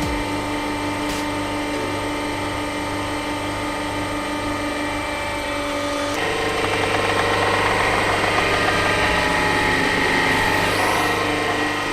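Hydraulic press running with a steady mechanical hum. About six seconds in the sound turns louder and rougher.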